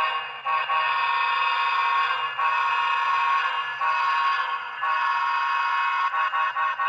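HO scale model diesel locomotive's onboard sound system blowing its horn through a small speaker, in long, long, short, long blasts as for a grade crossing.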